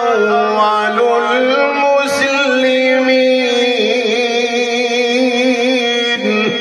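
A man's voice in melodic Quranic recitation (tilawat), holding one long, ornamented note that wavers in pitch and then fades near the end.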